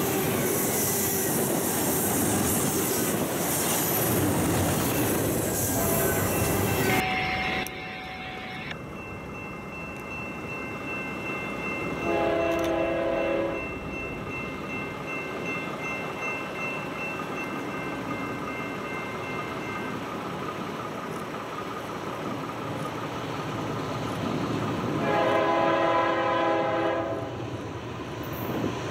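Double-stack freight cars rolling past close by with a steady rumble and rattle of wheels on rail, cutting off about seven seconds in. Then a diesel locomotive's horn sounds two blasts: a short one about twelve seconds in and a longer one near the end.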